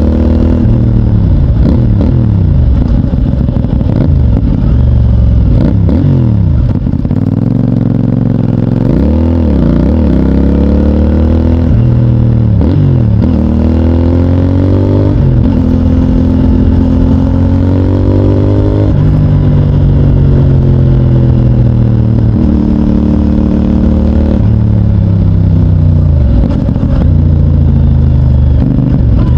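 CFMOTO 450NK's parallel-twin engine through its stock exhaust, pulling up through the gears with quick shifts, rolling off with engine braking and downshift blips, then holding a steadier cruise for several seconds before picking up again.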